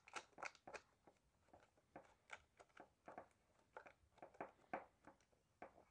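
Faint, irregular small clicks and rubs as a metal nut is turned by hand onto a circuit breaker's threaded stem and the plastic front cover of a DeWalt DW735 thickness planer is handled.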